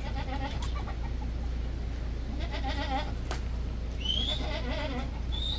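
Goats bleating: three quavering calls, about two seconds apart.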